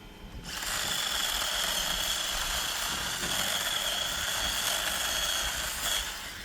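Electric chainsaw running with a steady high whine, starting about half a second in and stopping near the end.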